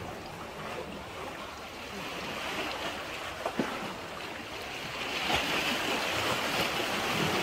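Sea water washing against the rocks and concrete tetrapods of a breakwater: a steady hiss that grows a little louder about five seconds in, with a couple of faint knocks.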